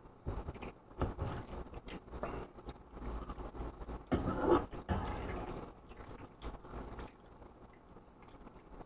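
Metal fork scraping and clinking in a pan of thick spaghetti, in short irregular strokes, with the loudest scrape about four seconds in.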